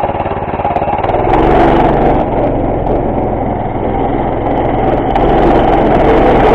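Harbor Freight Predator 212cc single-cylinder engine on a go-kart running at idle, then throttled up about a second in and running at higher revs as the kart drives off, getting louder again near the end.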